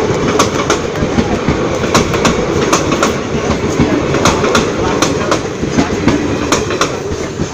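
Indian Railways passenger train (the Farakka Express) rolling past, its coach wheels clicking over the rail joints in a repeated clickety-clack over a heavy, steady rumble. The sound begins to ease near the end.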